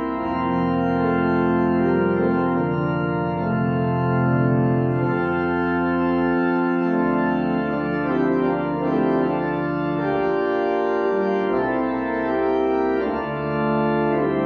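Church organ playing slow, held chords over low bass notes that change every few seconds: the closing voluntary at the end of the service.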